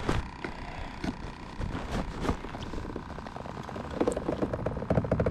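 A largemouth bass being released over the side of a kayak: scattered handling knocks, then about four seconds in a quick run of small splashes as the fish kicks at the water's surface.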